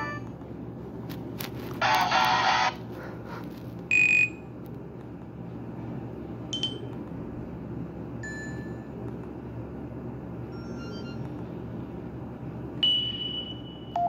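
Short electronic phone tones from a Nokia 130's speaker playing Nokia N76 sounds. A buzzy burst comes about two seconds in and a loud single beep at about four seconds, then a few faint short tones, and a steady high tone starts near the end. A constant low hum lies underneath.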